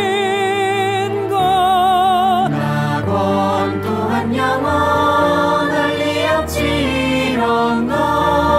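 A musical-theatre song from a pre-recorded track. A voice holds a long note with wide vibrato over sustained accompaniment, then further sung notes follow.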